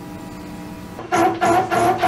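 Loud electronic dance music with a pulsing beat cuts in about a second in, over the steady hum of a CNC lathe turning steel.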